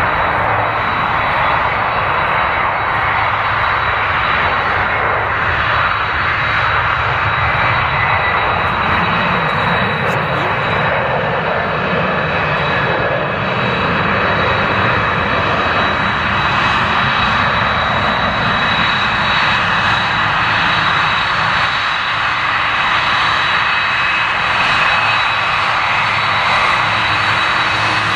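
Boeing 747-400 jumbo jet taxiing past close by on its four turbofan engines at taxi power: a steady jet rumble with a high thin whine over it.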